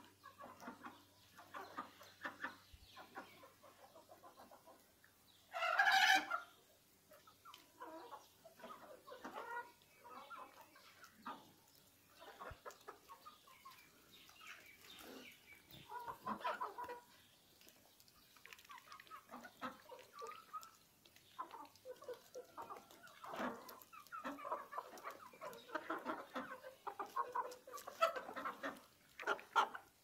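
A flock of chickens clucking, with many short calls scattered throughout and one much louder call about six seconds in.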